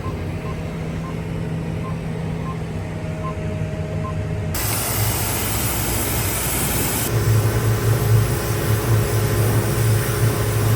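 An engine running with a steady hum. About four and a half seconds in, the loud hiss of a pressure-washer spray starts abruptly, and a couple of seconds later the engine note grows louder, as mud is blasted off a sugar beet lifter.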